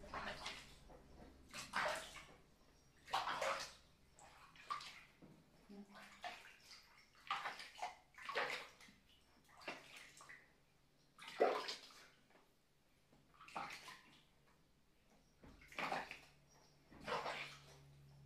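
Water splashing in a bath as a baby monkey is washed: about a dozen short splashes, one every second or two.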